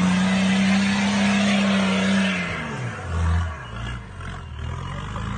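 Nissan GU Patrol ute's turbocharged TD42 straight-six diesel revving hard under load, held steady at high revs for about two seconds, then the revs drop away and stay lower before climbing again near the end.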